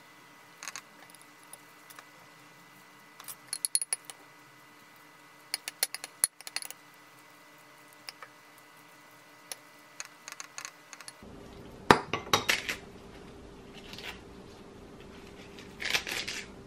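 A metal spoon clinking and scraping against a glass mixing bowl in short clusters while a soft filling is scooped out. About eleven seconds in the room sound changes to a faint steady hum, and louder clinks of kitchenware follow.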